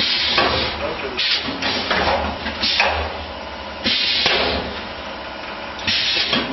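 Paper disc molding machine running: a short hiss about every second or so over a steady low hum.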